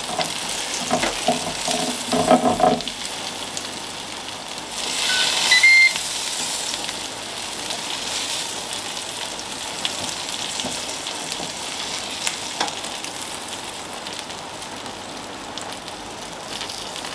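Cheese-topped field mushrooms sizzling steadily on the hot grill plate of a Ninja Foodi grill as a spatula lifts them off, with a louder rush of sizzle about five seconds in.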